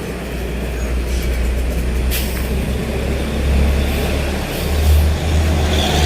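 Heavy vehicle's diesel engine pulling up a steep grade, a deep rumble growing steadily louder as it draws near, with a brief hiss about two seconds in.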